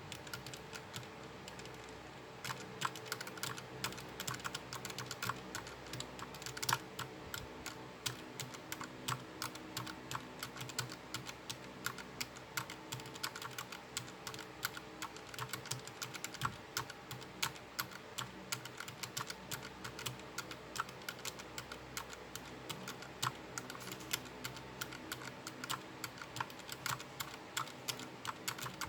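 Fast, uneven typing on a mechanical keyboard with the keycaps removed, fingers pressing the bare switches: a dense run of clicks and clacks that starts about two seconds in.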